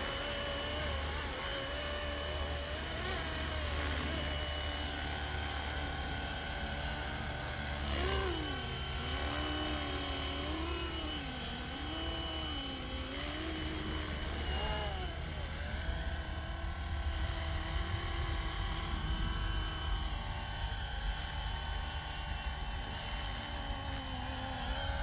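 Electric RC scale helicopter with a two-bladed main rotor in flight: a steady motor whine and rotor noise, whose pitch wavers up and down for several seconds from about eight seconds in.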